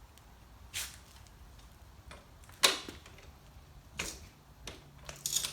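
Several separate sharp clicks and knocks of hard objects being handled, the loudest about two and a half seconds in.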